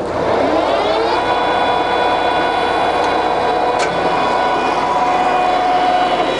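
Jessey Major centre lathe's geared headstock spinning up over about a second, then running steady at one of its spindle speeds with a steady gear whine.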